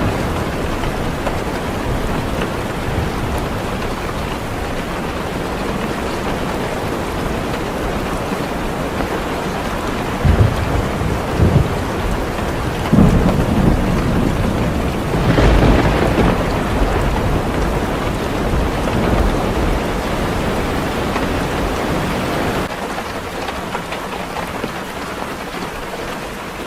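Steady heavy rain falling on a car, with thunder rumbling. The rumbles come about ten and thirteen seconds in, and the loudest one about halfway through.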